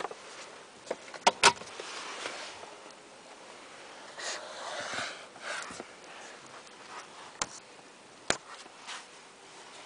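Handling noise inside a quiet car cabin: soft rustling of hands on the camera and the leather trim, with a few sharp clicks of the controls. The last click, near the end, comes as a finger presses the carbon-fibre DOWN gearshift paddle.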